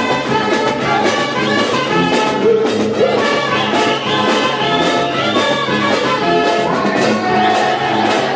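Brass band playing lively pandilla dance music, with trumpets and trombones over a steady drum beat about twice a second.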